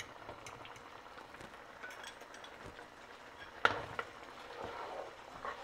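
Spatula stirring and scraping a simmering liquid mixture in a non-stick frying pan, over a low bubbling of the cooking. One sharp knock of utensil on pan comes about three and a half seconds in.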